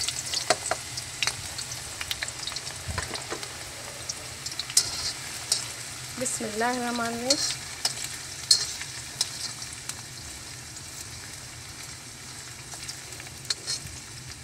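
Sliced onions sizzling in hot oil in a karahi, with sharp crackles now and then, while they are stirred with a slotted spoon.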